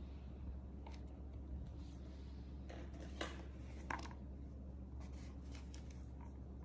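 Faint rustling and light taps from a baby monkey shifting about on a towel and being handled, with a sharper tap a little before four seconds in, over a steady low hum.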